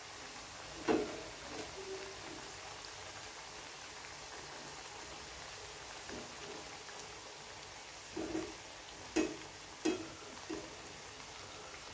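Milagu vadai (black urad dal pepper fritters) sizzling steadily in hot oil, with a few short clinks of a wire spider strainer against the pan, one about a second in and several near the end.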